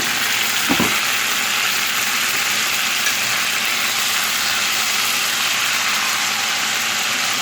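Marinated chicken sizzling steadily in hot oil in a cast-iron pan, with a light knock about a second in.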